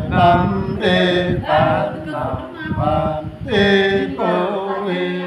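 Unaccompanied male voice singing a chant-like folk song, with held notes that bend up and down in short phrases.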